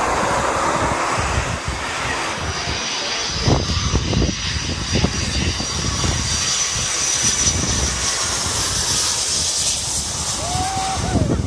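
Twin-jet airliner flying low overhead on final approach. Its engines give a steady rushing roar, with a high whine that grows stronger in the later seconds.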